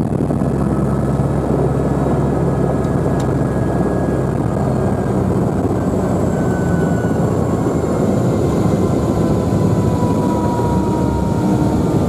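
Sightseeing helicopter running close by: a loud, steady rotor and engine din with thin whines that slowly fall in pitch.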